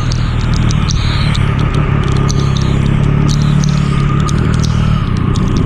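Triumph Speed Triple 1200 RS's inline three-cylinder engine running at a steady, low speed, with many irregular sharp high ticks over it.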